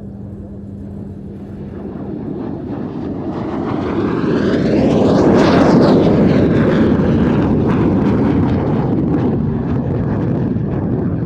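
MiG-17 jet fighter (Polish-built Lim-5) with its Klimov turbojet, making a flypast. The jet roar builds over about five seconds and peaks about halfway through, its pitch sweeping as the aircraft passes, then fades slowly as it moves away.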